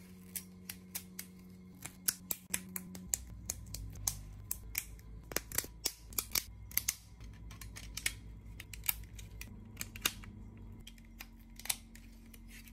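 Lego Technic plastic pieces clicking and snapping as they are handled and pressed together by hand: irregular sharp clicks, several a second, thickest in the middle, over a faint steady low hum.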